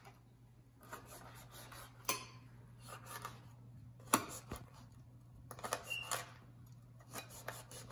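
Chef's knife chopping fresh rosemary on a wooden cutting board: irregular knocks of the blade on the board, with a quick run of taps near the end.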